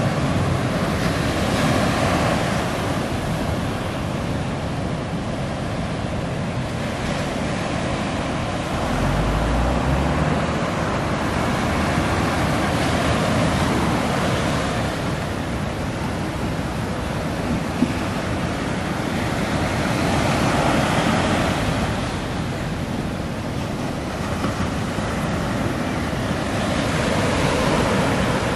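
Ocean surf breaking and washing in, a steady rush of water that swells and eases every several seconds as waves come through.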